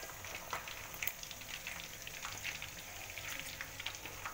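Pieces of turmeric-spiced chicken deep-frying in a wok of hot oil: a steady sizzle with frequent small crackles and pops.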